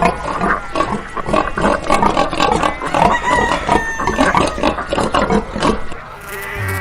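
Pigs grunting and squealing in a rapid, dense chorus of short calls.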